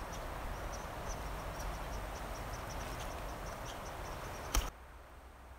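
Outdoor forest ambience: a steady hiss with faint, short, irregular high chirps. A sharp click comes about four and a half seconds in, after which the background is much quieter.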